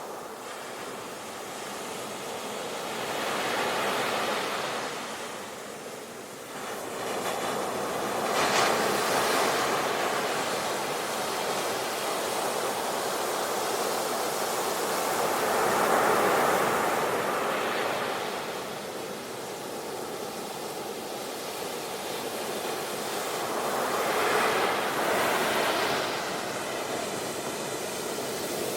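Ocean waves breaking on a beach: a continuous wash of surf that swells and recedes, with louder surges about every five to eight seconds.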